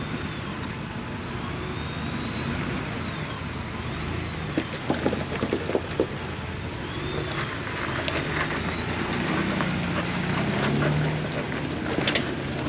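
Ford Bronco driving slowly over a rough off-road trail: a steady engine hum, with knocks and rattles from the vehicle and tyres over rocks, in a cluster about five seconds in and again near the end.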